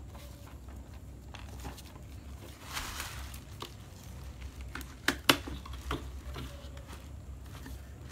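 Gloved hands handling a figure box and its clear plastic outer case: a soft rustle about three seconds in, then two sharp plastic clicks in quick succession a little after five seconds, with a lighter tap soon after.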